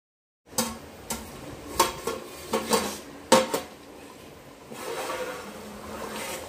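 Stainless steel pot lid and steel ladle clattering, with about eight sharp ringing clangs over the first three seconds as the lid is handled and lifted off the pot. After that the chicken masala bubbles steadily in the open pot.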